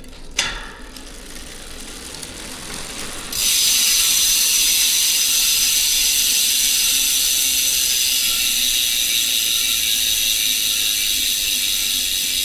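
Bontrager wheel's freehub buzzing as the wheel freewheels: a fast, steady, high-pitched ratcheting of the pawls. It starts abruptly about three seconds in, after a click and a fainter rising whirr.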